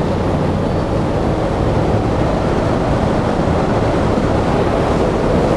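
Wind-tunnel airflow at just over 50 mph, climbing toward 60 mph, blasting past the microphone: a steady, dense, low rush of wind noise.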